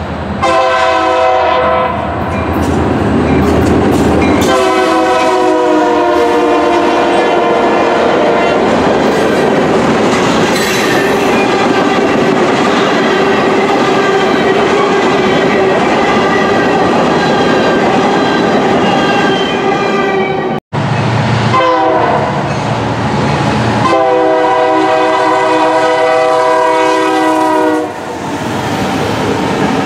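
Diesel freight locomotive horns blowing long chord blasts while freight cars roll past, clattering over the rail joints. The first train sounds two long blasts and then rolls on steadily. After a sudden cut, a second freight locomotive gives a short blast and then one long blast as it passes.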